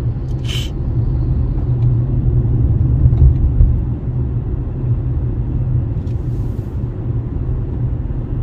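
Steady low rumble of a vehicle driving along a highway, road and engine noise, swelling about three seconds in, with a brief hiss just after the start.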